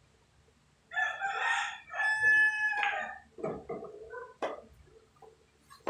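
A rooster crowing once, one call of about two seconds on a steady pitch. Softer scattered sounds follow, then a sharp click a little after four seconds in as a cue strikes a pool ball.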